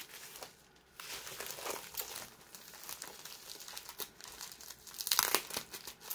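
Crinkling and rustling of the wrapping on a rolled diamond painting canvas as it is handled and unwrapped, in irregular crackly bursts that are loudest near the end.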